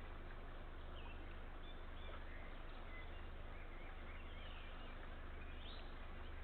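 Steady outdoor hiss with a low hum, picked up by a nest camera's microphone, with faint, brief chirps of small birds scattered through it.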